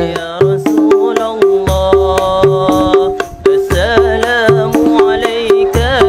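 A shalawat devotional song sung with a melodic, wavering voice over a hand drum beating a steady rhythm, with deep drum strokes every couple of seconds.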